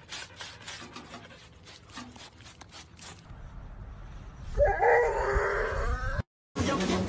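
Boxer dog giving a wavering, drawn-out groan for about two seconds, starting a little past the middle; before it, only faint ticks.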